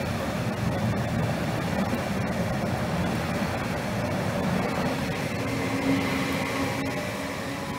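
Tper ETR 350 electric multiple unit running along the track and drawing away: a steady rumble of wheels on rails and running gear, with a motor hum coming up about five seconds in. The sound fades near the end as the train recedes.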